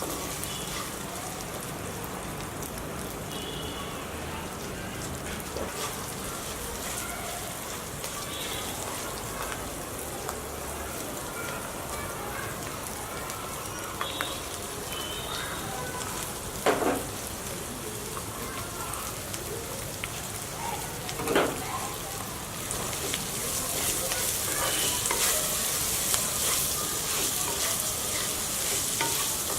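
Food frying and sizzling in a pan while it is stirred, with two sharp knocks in the middle. The sizzle grows louder and brighter about two thirds of the way through.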